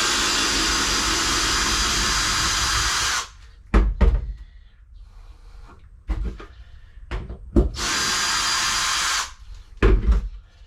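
Power drill running in two bursts, one of about three seconds and a shorter one of about a second, with several knocks and clunks in between, as bolts on a boat's deck lid are worked out.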